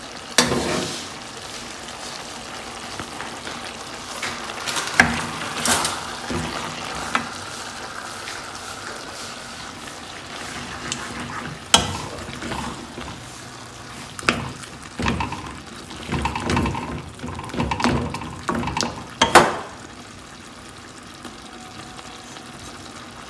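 Potato and aubergine curry sizzling in an aluminium pot while it is stirred with a wooden spoon, with irregular knocks and scrapes of the spoon against the pot.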